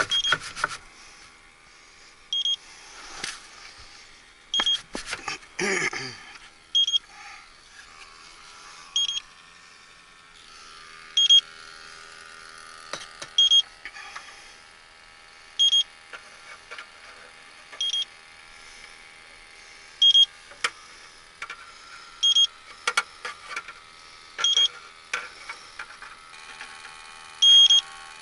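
Electronic refrigerant leak detector beeping at an even pace, one short high beep about every two seconds, the slow idle rate of a detector that is not picking up refrigerant. A few knocks and rustles of handling come a few seconds in.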